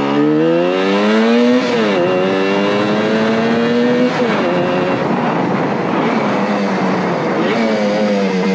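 Suzuki GT185's small air-cooled two-stroke twin engine being ridden. Its revs climb, fall back sharply twice, then hold fairly steady.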